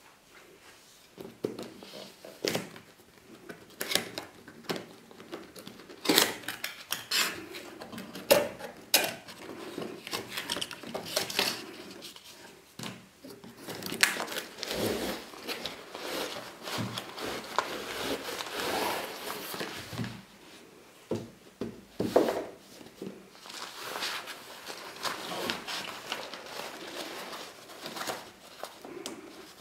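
Cardboard packaging handled and opened by hand: a string of sharp knocks, taps and scrapes against the box, with rustling as the contents are slid out. Near the end the nylon drawstring carry bag rustles as it is handled.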